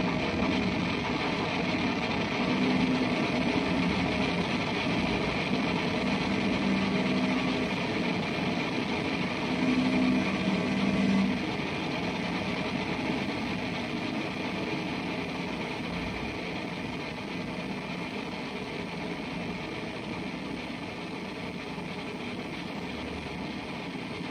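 Electric guitar sound transformed through a chain of effects pedals into a dense, noisy, machine-like drone. A few low held tones come and go in the first half, then the texture fades gradually.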